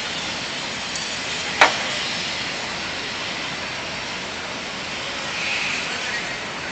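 Steady rushing street noise, with one sharp pop about one and a half seconds in.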